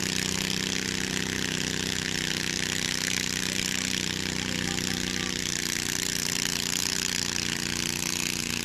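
Small garden tractor engine running steadily at high revs under load as it drags a weight sled at a tractor pull, holding one even pitch.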